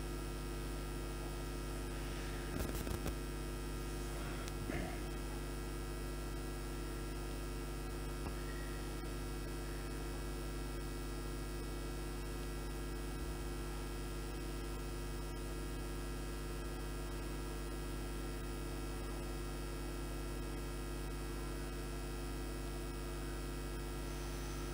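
Steady electrical mains hum with a stack of even overtones, picked up by the recording setup, with a couple of faint brief noises a few seconds in.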